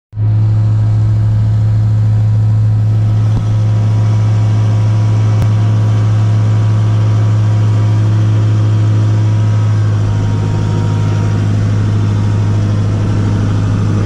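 Compact loader tractor's diesel engine running at a steady speed, heard from inside the closed cab as a steady low drone.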